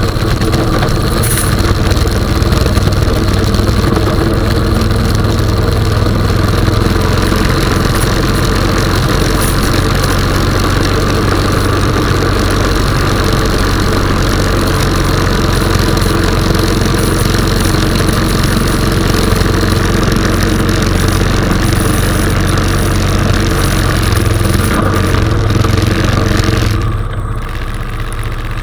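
Honda 420 ATV's single-cylinder engine running steadily while plowing snow, then easing off and going quieter near the end.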